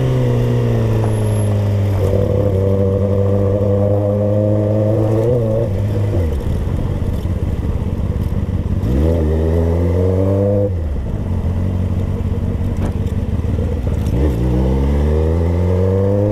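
Kawasaki ZX-10R's inline-four engine running in slow traffic, heard from the rider's seat. Its revs rise in pitch three times, each pull followed by a sudden drop as the throttle comes off.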